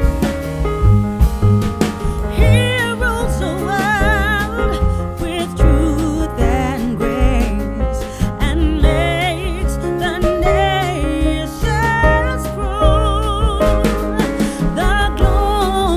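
Background song: a singer's voice with vibrato over keyboard and a steady bass beat.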